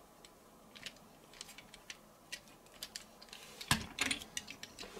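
Plastic parts of a Gobots Puzzler combiner toy robot clicking and knocking together as the torso section is fitted back onto the legs, with one louder knock a little before four seconds in.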